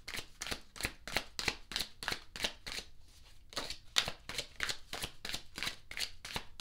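A deck of tarot cards being shuffled by hand, a steady run of short card-on-card slaps about three or four a second, with a brief pause about three seconds in before the shuffling resumes.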